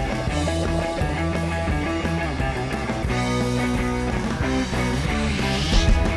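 Intro theme music with a steady beat, swelling with a rising whoosh and a loud hit near the end.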